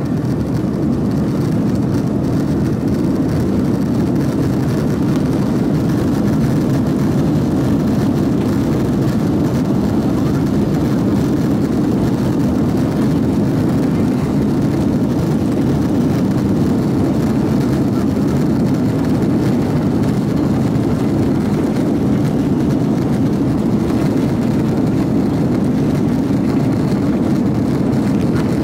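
Airbus A330-300 heard from inside the passenger cabin on the takeoff roll: a loud, steady, deep jet-engine rumble that builds slightly in the first second and then holds.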